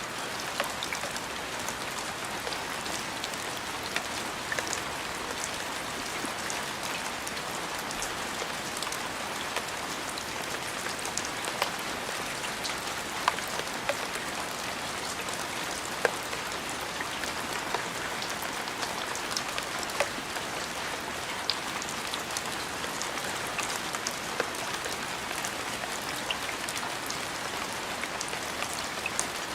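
Steady rain falling: an even hiss with scattered sharp clicks throughout.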